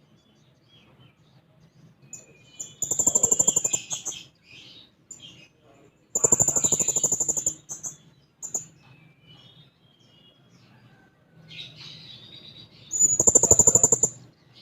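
Serindit (hanging parrot) calling: three loud, rapid buzzy trills of about a second each, with shrill, thin chirps in between.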